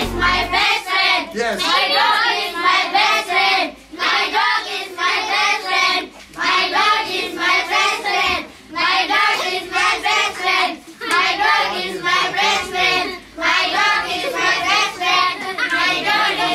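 A group of children singing together in short repeated phrases of about two seconds each, with brief breaks between them.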